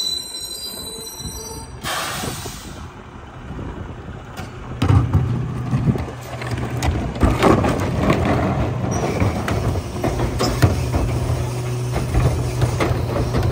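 Mack Granite garbage truck with a Heil rear-loader body: a short air-brake hiss about two seconds in as it stops. About five seconds in, the diesel engine starts a steady low drone, with repeated clanks and bangs as plastic waste carts are tipped and knocked against the rear hopper.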